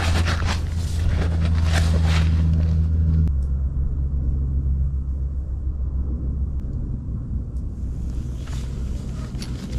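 A low, steady motor-like hum that drops in level about three seconds in.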